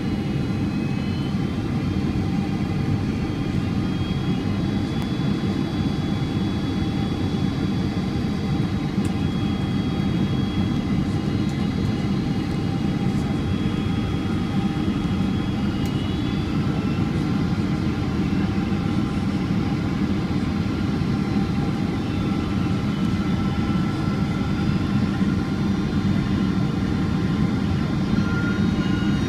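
Cabin noise of a Boeing 767-400ER on final approach, heard inside the cabin beside the wing: a steady low rush of airflow and its General Electric CF6 turbofans running, with faint high whining tones that drift slightly in pitch.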